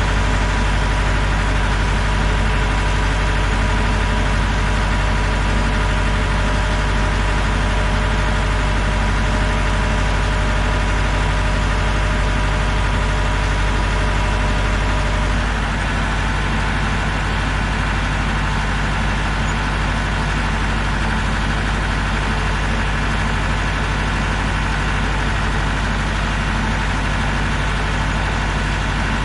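An engine idling steadily. About halfway through, its tone shifts slightly and it becomes a little quieter, then it idles on evenly.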